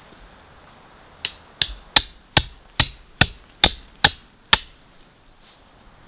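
A hatchet used as a hammer, driving a tent stake into the ground: nine sharp, ringing strikes at about two and a half a second, then it stops.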